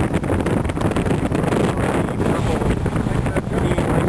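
Wind buffeting the camera's microphone: a steady low rumble with rough crackling.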